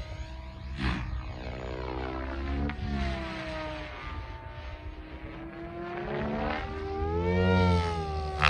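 Electric SAB Goblin 700 RC helicopter in 3D flight, its Pyro 800 motor and gear whine and rotor blade whoosh. The pitch bends up and down as it flies toward and away, with a brief loud blade whoosh about a second in.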